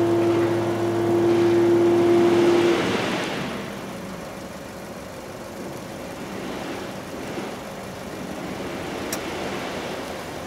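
Steady hum and rumble of a freight train running past, which cuts off about three seconds in and leaves a quieter, even background noise. One short click near the end.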